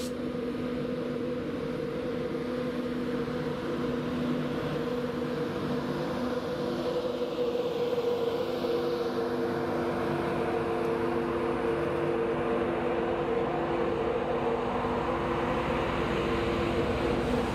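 Class 91 electric locomotive pulling an InterCity 225 set past on departure. Its traction equipment gives several steady whining tones over the rumble of the wheels, and it grows slightly louder as the coaches go by.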